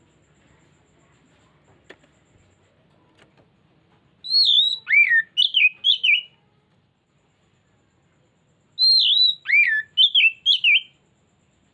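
Oriental magpie-robin (kacer) singing: the same short phrase of loud, swooping whistled notes given twice, about four seconds apart.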